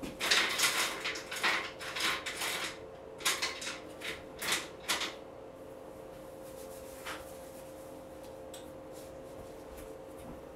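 Small pieces of beach glass clinking and rattling as they are picked through by hand, a quick run of clatters over the first five seconds that then stops. A faint steady hum runs underneath.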